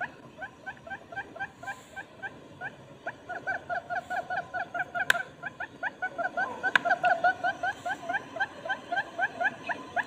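Barred buttonquail calls played as a lure recording: a long run of short, clipped notes, several a second, growing denser and louder through the middle. Two sharp clicks cut in about five and seven seconds in.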